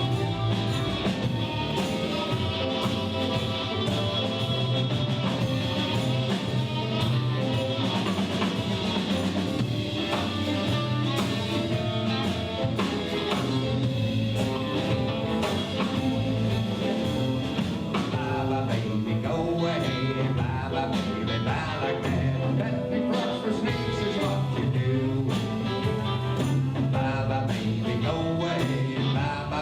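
Blues band playing live: an instrumental stretch with guitar over bass and a steady drum beat.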